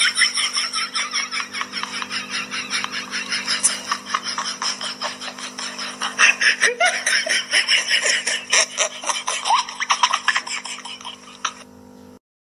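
Hard, continuous laughter in fast repeated bursts over a steady low hum, cutting off abruptly just before the end.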